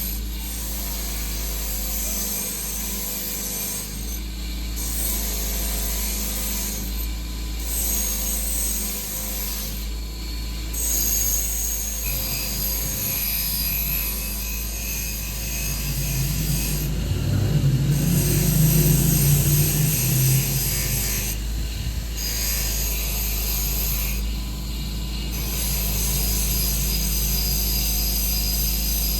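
Metal parts of a seviyan (vermicelli) hand press clicking, ratcheting and rubbing as they are fitted together and turned by hand, with a louder low rumbling stretch partway through.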